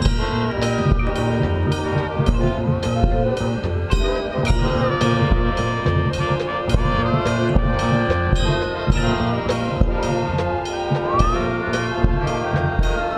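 Drum and bugle corps brass playing sustained chords over steady drum-line strokes, with a siren-like wail sliding up and down in pitch several times.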